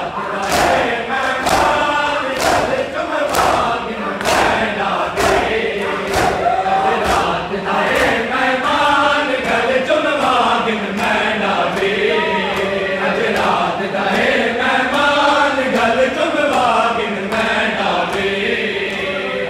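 A crowd of men chanting a noha, a Shia lament, in unison, with the slaps of hands beating on bare chests (matam) keeping an even beat of about two a second.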